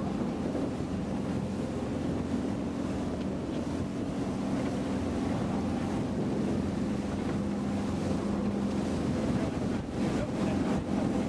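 Engine of a fast rigid inflatable boat running at a steady drone under way, with wind on the microphone and water rushing past the hull.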